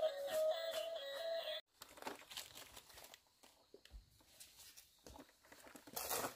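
Background music carrying a melody cuts off abruptly about a second and a half in. After it come faint, irregular rustling and crackling sounds, a little louder just before the end.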